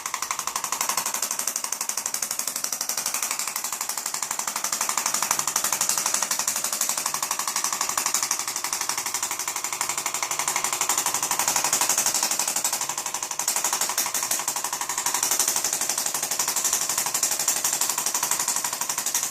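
Handheld electric chiropractic percussion instrument running, tapping rapidly and evenly in a steady buzzing stream without a break.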